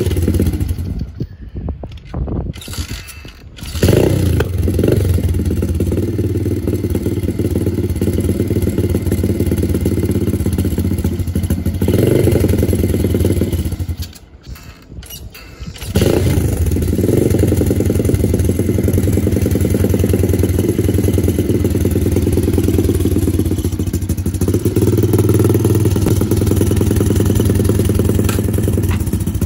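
A 125cc pit bike's single-cylinder four-stroke engine being started on choke: it sputters for the first few seconds, then catches about four seconds in and runs steadily. It dies out briefly around the middle, then fires again and keeps running.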